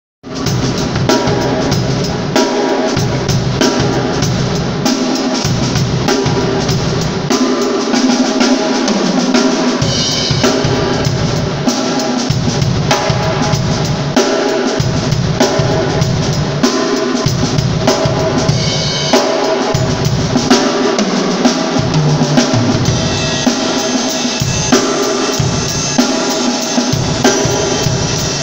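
Drum kit played in a busy groove, bass drum and snare drum struck without a break. The snare is a homemade 13 x 7.5 inch drum with an 8 mm shell cut down from a 13 x 11 tom, a coated single-ply batter head and 30-strand snare wires.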